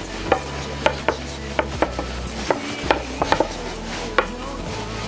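A long wooden rolling pin knocking against a wooden board as noodle dough is rolled out into a sheet: sharp wooden clacks at uneven intervals, roughly two a second, over a low steady hum.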